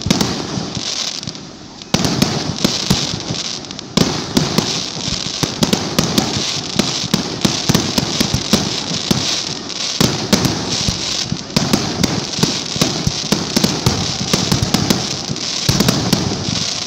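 Aerial fireworks bursting overhead: dense, continuous crackling and popping, with sharper bangs about two and four seconds in.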